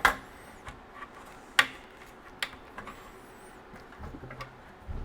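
Sharp clicks and small knocks from handling the opened oscilloscope as it is being set up to power on, three of them distinct, with a faint high-pitched wavering whine twice and a few dull low knocks near the end.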